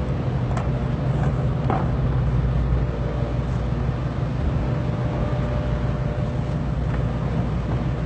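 Steady low rumble and hum of a ship's machinery, with a few faint knocks.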